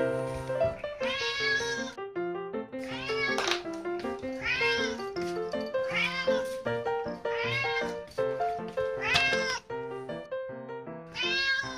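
Domestic cat meowing over and over, about six rising-and-falling meows a second or two apart, over background music.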